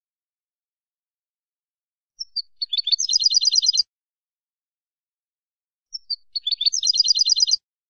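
Wild European goldfinch singing the same short phrase twice, starting about two seconds in. Each phrase is a few separate high notes and then a fast trill of repeated notes lasting about a second, with a pause of about two seconds between the phrases.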